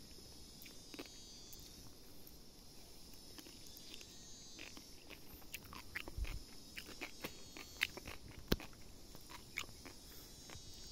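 Steady high-pitched buzzing of forest insects, with scattered sharp clicks and crunches that grow busier in the second half and a dull thump about six seconds in.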